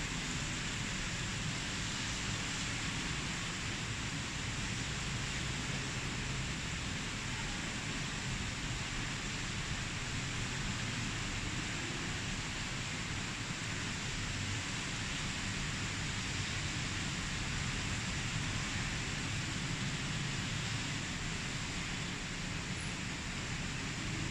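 Rain falling in a steady hiss, with a low rumble underneath.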